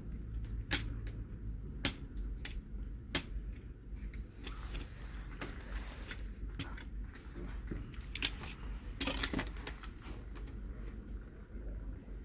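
Scattered sharp clicks and small snaps of tools, metal and plastic as a laptop's metal keyboard backplate is worked loose from its melted plastic rivets, over a low steady hum.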